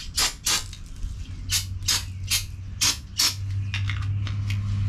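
Aerosol brake cleaner sprayed onto a brake caliper in about ten short, hissing squirts, the last few fainter, with a steady low hum underneath.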